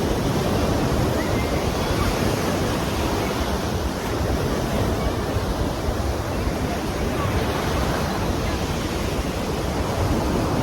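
Ocean surf washing in steadily, with wind noise on the microphone.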